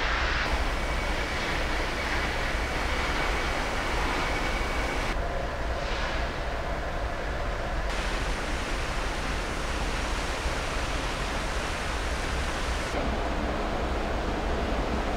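Steady rushing wind noise on the microphone with a low rumble underneath, its tone changing abruptly a few times.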